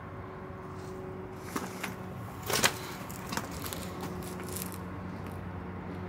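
A few scattered cracks and scrapes over a steady low hum, the loudest crack about two and a half seconds in.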